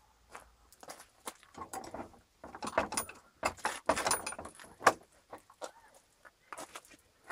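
Footsteps crunching on a gravel drive, one stride about every half second at first. A louder, denser bout of scuffing and clattering follows from about two and a half to five seconds in, as he stops at a wooden gate and handles it.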